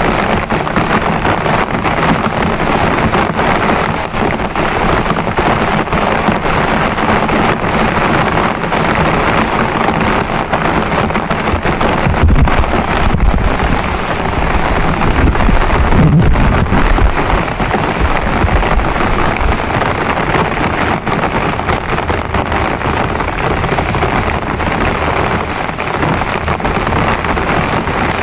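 Heavy rain pouring steadily, with a deep low rumble swelling in about midway through.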